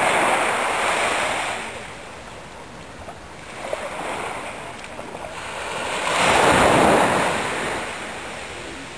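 Small waves washing up and draining back on a sandy beach, coming in slow swells of hissing surf, the loudest about six to seven seconds in.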